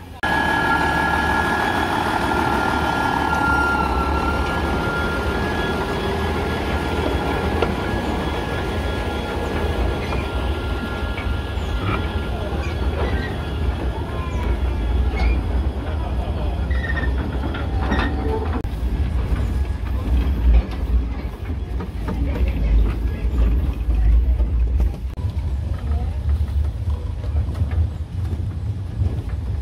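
Heritage tourist train's wooden carriages rolling along the track: a steady low rumble with rattling and clatter. A high metallic squeal in the first few seconds fades away.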